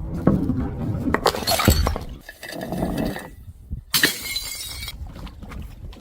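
Glass being smashed: crunching and clinking of glass in the first two seconds, then a sharp shattering crash about four seconds in, with a brief ringing tail as the pieces settle.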